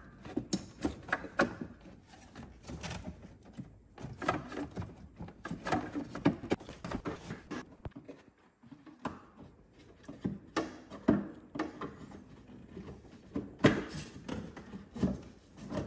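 Irregular knocks, clicks and scrapes of hands working plastic and rubber parts loose around a car's intake manifold, with a brief lull about eight seconds in.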